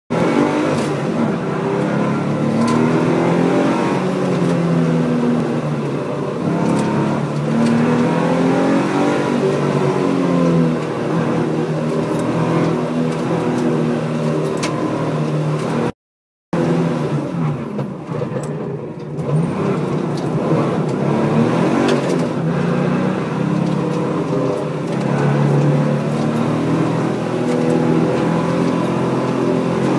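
A Porsche's engine heard from inside the car during a hard autocross run, revving up and falling back again and again through the gears and corners. The sound cuts out completely for about half a second around the middle.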